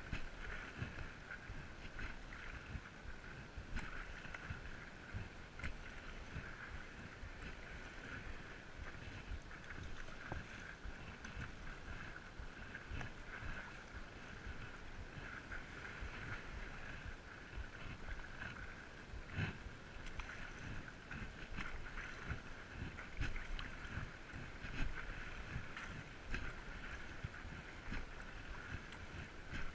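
Stand-up paddleboard on the sea, heard from a chest-mounted camera: a steady hiss of water and air, with irregular small splashes and knocks from paddling and the board moving on the water.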